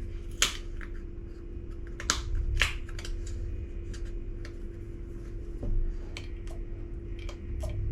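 Scattered sharp clicks and taps of a bottle and glass being handled while agave syrup is added to a drink, the loudest near the start, over a steady low hum.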